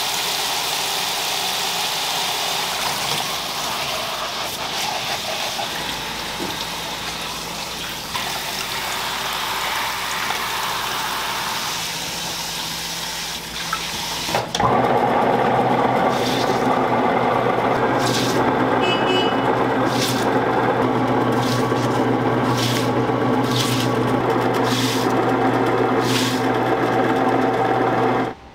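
Tap water spraying steadily onto green onions in a bowl. About halfway it gives way to a small electric motor running with a steady hum and occasional ticks, which stops suddenly at the very end.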